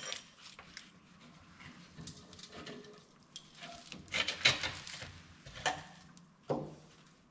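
Scattered clicks, knocks and light clatter of hand work with tools and small metal parts: a sharp click at the start, a busier run of clatter about four seconds in, and a couple of single knocks near the end.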